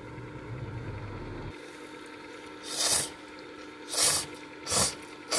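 A person slurping ramen noodles: three loud slurps about a second apart in the second half, and a short one at the end.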